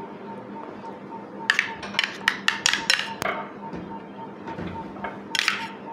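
Metal spoon clinking against a stainless steel bowl as curd is spooned out: a quick run of light clicks about a second and a half in, and a short rasp near the end.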